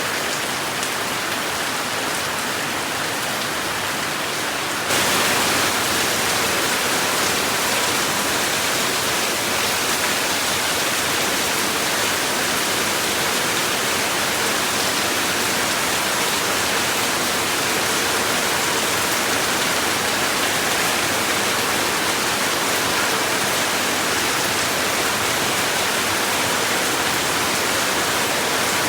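Steady rain falling, an even hiss with no distinct drops. About five seconds in it jumps abruptly louder and brighter, then holds steady.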